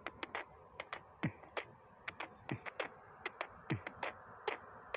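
Mouth percussion: a run of sharp tongue clicks and pops, about three to four a second, a few of the pops dropping quickly in pitch like a small bass drop.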